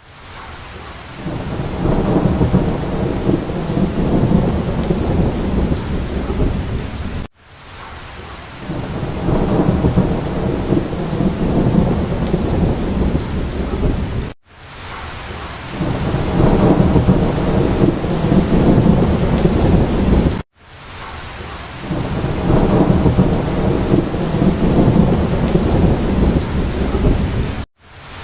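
Thunderstorm: steady rain with a deep rumble of thunder beneath it. It comes in four takes of about seven seconds, each swelling in and cutting off abruptly.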